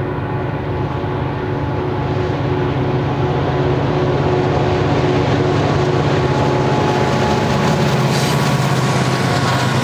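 Union Pacific EMD diesel locomotives pulling a loaded ballast train, their engines running with a steady deep tone that grows louder as they approach and pass. Near the end the rolling noise of the ballast cars' wheels on the rails comes in.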